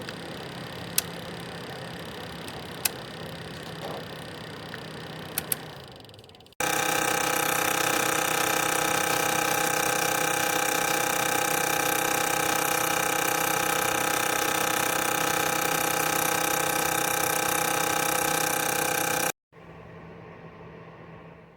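Black+Decker BHDC201 portable fan heater running, a steady fan whir with a few sharp clicks. About six seconds in, a much louder steady whirring noise with several held tones starts suddenly and runs for about thirteen seconds before cutting off abruptly, leaving a quieter hum: the very loud noise the heater makes when turned on.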